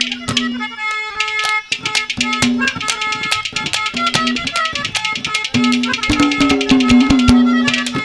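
Ragni accompaniment band playing an instrumental interlude: a hand drum beating a fast, busy rhythm under a melody instrument holding long, steady notes.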